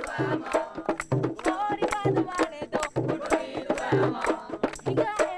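Boduberu drums played in a fast, steady rhythm, with voices singing over them.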